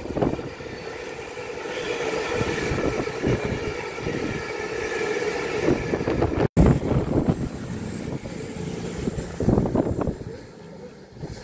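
Hitachi Intercity Express Train passing at speed: rail and wheel noise with a steady multi-tone whine, fading as it runs away. After an abrupt cut about six seconds in, a CrossCountry Voyager passing, with wind gusting on the microphone.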